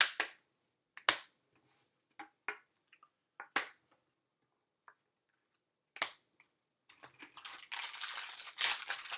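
Trading cards being snapped down one at a time onto a stack on a wooden table, a sharp click every second or two. Near the end, a foil card pack being torn open with a dense crinkling rustle.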